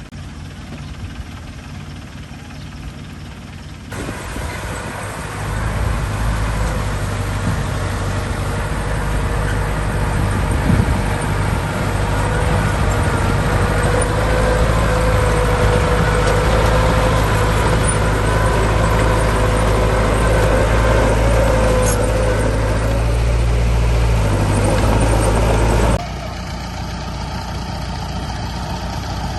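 Heavy diesel engines of earthmoving machines (dump truck and bulldozer) running steadily with a deep rumble. The sound jumps louder a few seconds in, adding a held whine, and drops back abruptly near the end.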